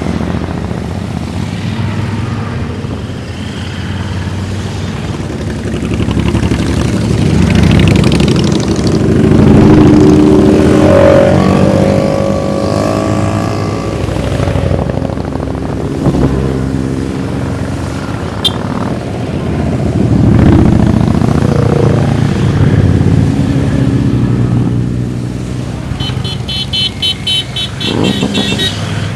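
A convoy of motorcycles (sport bikes, adventure tourers and cruisers) riding past one after another, the engines swelling and fading as each group goes by, one with a gliding pitch about halfway through. Near the end a fast, high-pitched pulsing tone sounds over the engines for a few seconds.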